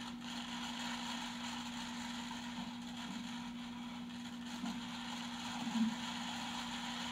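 Steady low hum with faint hiss: background room tone in a pause between question and answer, with a couple of faint soft sounds about two-thirds of the way through.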